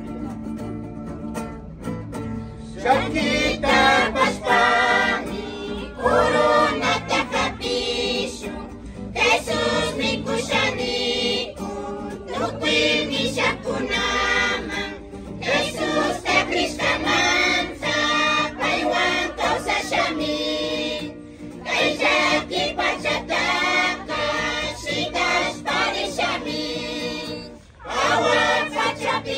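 A group of voices singing a hymn together, in long phrases with short breaks between them, the singing coming in about three seconds in.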